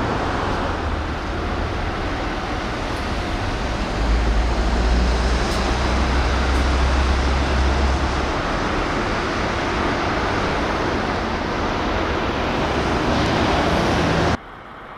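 Steady outdoor rumble and hiss, like road traffic, with a heavier deep rumble for about four seconds from around four seconds in. It drops away suddenly near the end.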